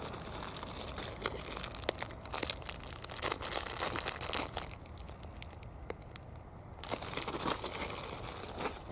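Crinkly material being crumpled and handled, full of sharp crackling clicks, in two spells with a quieter gap between them.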